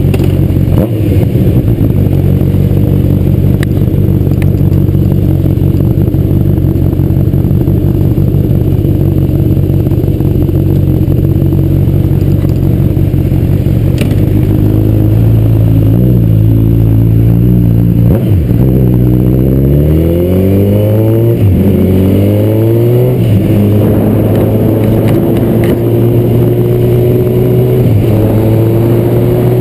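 Honda CB1000R's inline-four engine idling steadily, then pulling away about halfway through, rising in pitch through a few upshifts, and settling to a steady cruise near the end.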